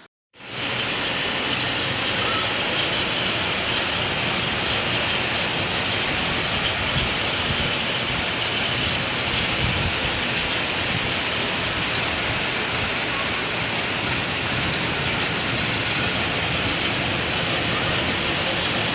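Rain falling steadily in a dense, even hiss, starting abruptly just after a brief break at the very beginning.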